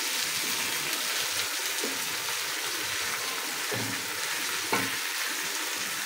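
Chicken leg pieces and onions sizzling steadily in hot oil in an aluminium pot while they brown. A spatula scrapes and knocks against the pot as the pieces are turned, with a sharper knock about three-quarters of the way through.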